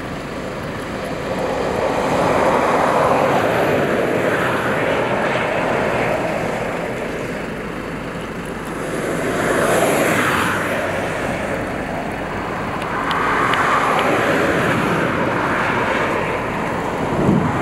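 Cars passing one after another on the road. Each pass is a swell of tyre and engine noise that rises and fades over a few seconds, about three in all, with a brief thump near the end.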